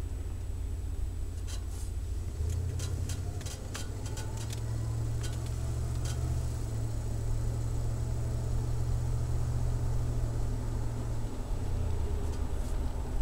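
Ford 351 Windsor V8 exhaust through a Flowmaster Delta Flow 50 series muffler, heard from inside the van as a low drone. The engine note rises about two and a half seconds in, holds, then drops back near the end, with scattered light clicks in the first half.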